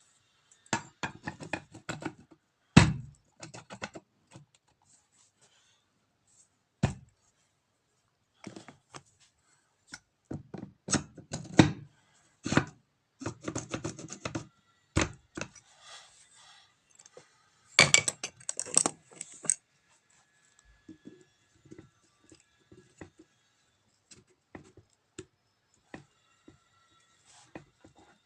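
Irregular metallic knocks, clinks and clicks of tools and starter-motor parts handled on a workbench, with a louder scraping stretch about two-thirds of the way in and lighter ticks near the end.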